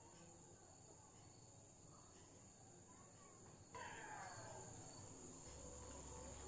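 Near silence with a faint steady high-pitched whine. A little under four seconds in, it gets slightly louder, with a few faint falling tones.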